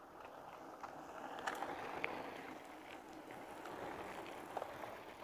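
Mountain bike rolling over a rough road: faint tyre noise with scattered small clicks and rattles.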